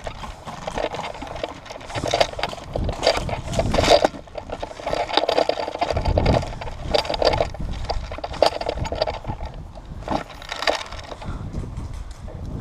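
A person's footsteps on a dirt and gravel path, scuffing and knocking unevenly as they walk.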